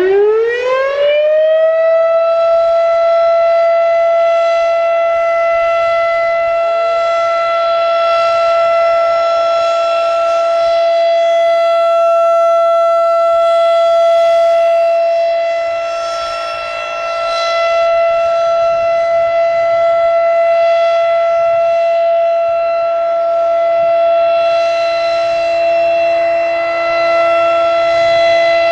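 Federal Signal RSH-10 Thunderbeam rotating tornado siren winding up in pitch over the first two seconds, then holding one steady tone, the pattern of the alert signal. Its loudness swells and dips as the rotating horn turns, with a clear dip about two-thirds of the way through.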